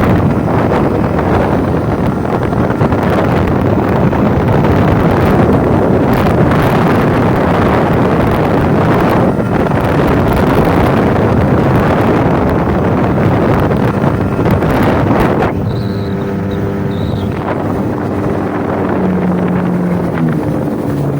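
Suzuki DT 25 two-stroke outboard running at full throttle, buried under heavy wind buffeting on the microphone. Near the end the wind drops away and the engine's note comes through clearly, stepping down in pitch as it slows.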